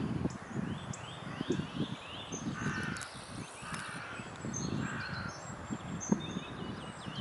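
Birds calling: a few harsh, caw-like calls, with runs of short rising chirps from small birds and a low rumble underneath.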